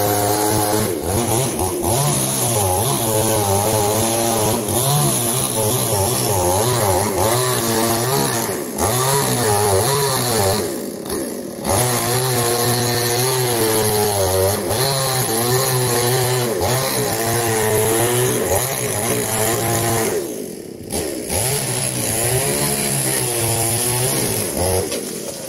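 Chainsaw engine running under throttle, its pitch wavering up and down as it works. It eases off briefly twice, just before halfway and again near the end.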